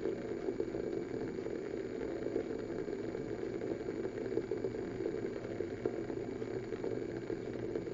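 Water in a glass beaker on a hot plate heating toward a boil: a steady low rumble with faint irregular crackles, as vapour bubbles form at the bottom and collapse before most of them reach the surface.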